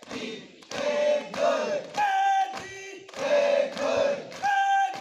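A group of young cadets shouting drill calls in unison as they march, a rhythmic chant of short and held shouts about once a second.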